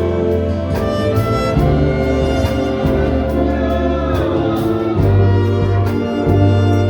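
Orchestra playing a piece of music: held notes with a strong bass line over a regular percussive beat.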